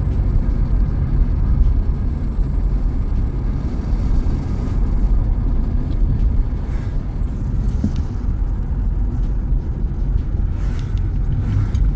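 Steady low road rumble of a car driving, heard from inside the cabin: tyre and engine noise at cruising speed.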